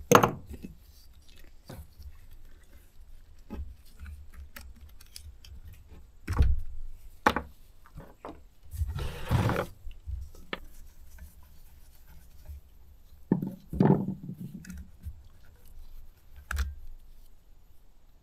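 Scattered clicks, knocks and scrapes of chainsaw parts and hand tools being handled and set down on a wooden board, with a longer scraping rustle about nine seconds in and a louder knock around fourteen seconds.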